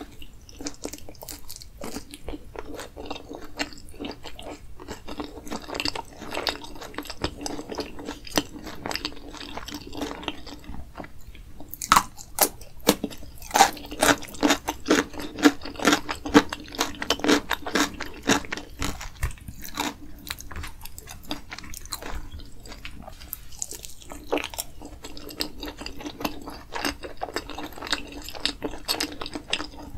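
Close-miked chewing of sauce-covered loaded french fries: wet mouth sounds with many small crisp crunches, busiest and loudest through the middle stretch.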